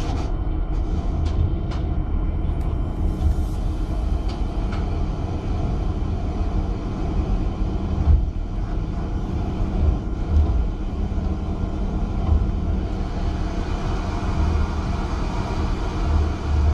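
Steady low rumble of a stern trawler's deck machinery, with wind and sea noise, as the trawl net is winched up the stern ramp. A few faint clicks come in the first two seconds.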